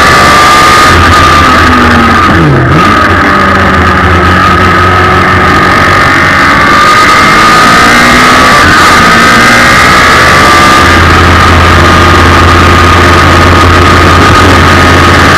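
Suzuki Hayabusa 1300 inline-four motorcycle engine powering a race car, running loud and steady at high revs, heard onboard with wind noise. About two and a half seconds in the revs dip briefly and climb back.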